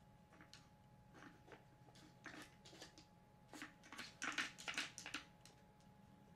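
Dog nosing and pawing at a wooden Nina Ottosson Dog Turbo puzzle: a run of light wooden clicks and clatters as the pieces are pushed, busiest and loudest about four to five seconds in.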